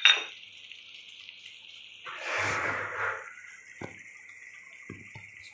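Steel spatula knocking against and scraping an aluminium kadai of thickening manchurian gravy, with a few small pops from the simmering gravy over a steady hiss. A sharp clink comes at the very start and a longer scrape about two seconds in.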